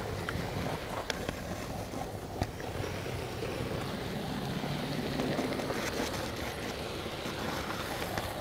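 Steady rumbling noise of a camcorder riding on a hand-pushed HO-scale flat car as it rolls along the track, with a few sharp clicks about one and two and a half seconds in.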